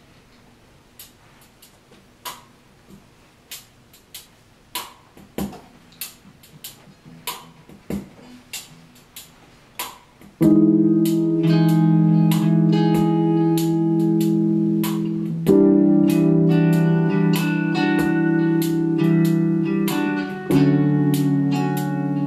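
Finger snaps keep a slow, steady beat and grow louder. About halfway through, an acoustic guitar comes in with sustained jazz chords, changing about every five seconds.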